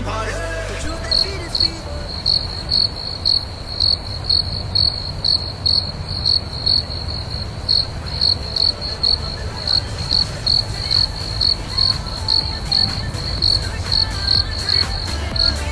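Cricket-chirp sound effect, a high chirp repeating about two or three times a second over a low rumble. It is the comic 'crickets' cue for awkward nothing-happening.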